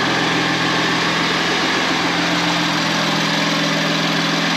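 BMW F80 M3's S55 twin-turbo inline-six idling steadily, just after its first start on newly fitted Mosselman hybrid turbos, with no leaks so far.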